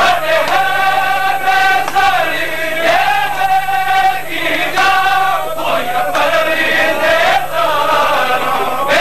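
Male voices chanting a Punjabi noha, a Shia lament, in phrases of about a second or so. Some notes are held with a waver.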